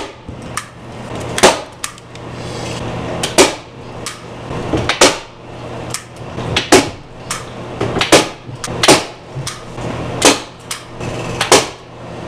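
Hand staple gun driving staples through automotive carpet into a wooden tabletop: about ten sharp clacks at irregular gaps of roughly one to two seconds.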